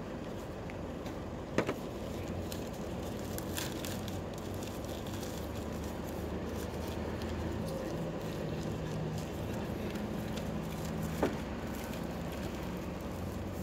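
Steady low hum of street background around a roti stall, broken by two short, sharp knocks, one about a second and a half in and one near the end, as the vendor handles tins and the roti on the steel counter.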